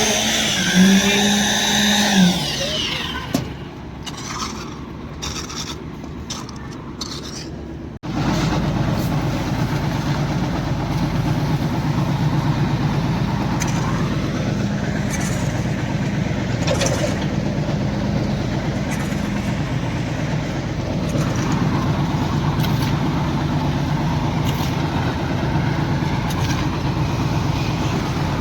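An engine runs steadily after a sudden cut about eight seconds in. Before the cut there is a loud pitched, wavering sound in the first few seconds, then a quieter stretch.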